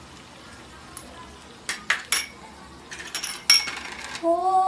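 Metal kitchenware clinking: a few sharp clicks about halfway through, then a quick cluster of ringing clinks.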